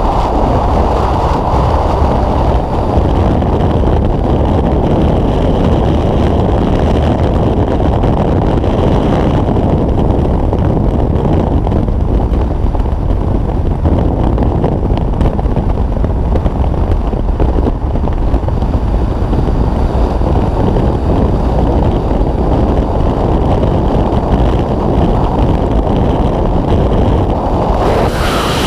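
Freefall wind rushing over the microphone of a skydiver's camera: a loud, steady roar heavy in the low end. Near the end it turns brighter and hissier.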